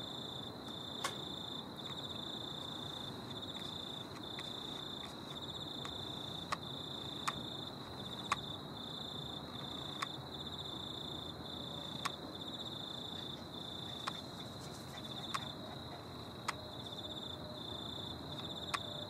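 Crickets chirping in a steady high-pitched trill broken by brief gaps, with a scattering of faint sharp clicks.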